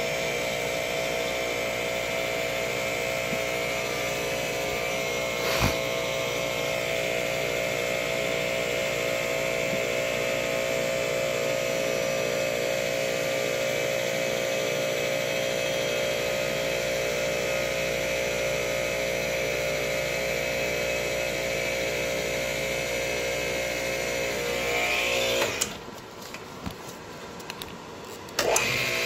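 An electric fan running with a steady hum and whine, blowing to cool down a hot engine. One sharp click about six seconds in; near the end the hum drops away for a few seconds, then comes back.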